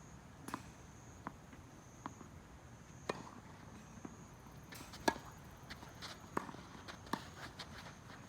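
Tennis ball struck back and forth in a rally: sharp racket hits about every two seconds, with fainter knocks between them.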